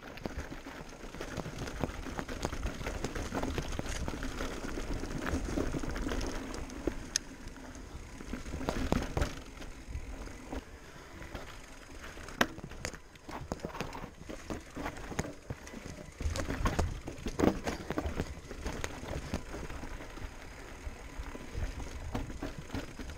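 Electric mountain bike riding over rough, rocky singletrack: a steady rumble of tyres on dirt and rock with frequent irregular clatters and knocks from the bike, the sharpest about halfway through and again near three quarters of the way.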